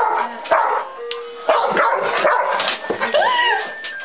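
Dog barking repeatedly at the nail clippers it dislikes: a run of sharp barks, one or two a second, with a drawn-out rising-then-falling call near the end.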